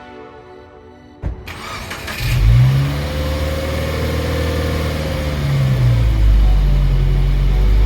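Soft music gives way about a second in to a sudden hit, then a car engine revs: its pitch climbs, holds for a few seconds, drops back, and settles into a loud, steady low drone.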